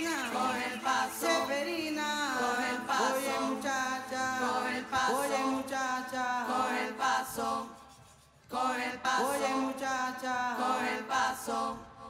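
Chanted singing with phrases that slide down in pitch and no beat underneath. It fades almost out about eight seconds in, then comes back.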